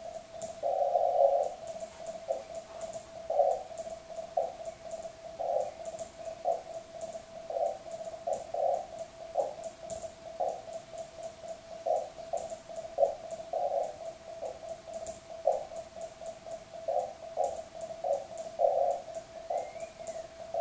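Morse code sidetone as a PS213 key sends a CQ call: a single steady tone keyed on and off in dots and dashes, with faint high clicks in time with the keying.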